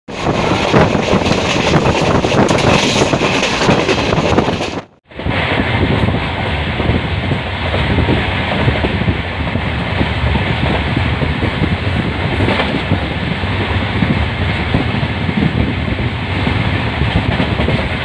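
Express train coaches running at high speed, wheels rumbling and clattering over the rails, heard at an open coach door. The sound cuts out for a moment about five seconds in and picks up again.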